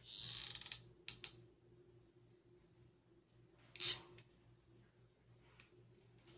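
Quiet handling of a hot glue gun while glue goes onto a small pompom: a short rustle at the start, two light clicks about a second in, and another brief scrape near four seconds, over a faint steady hum.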